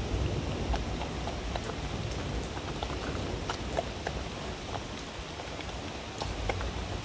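A dog eating from a wooden bowl of minced meat, egg, watermelon and vegetables: many small irregular wet chewing and smacking clicks over a steady low noise.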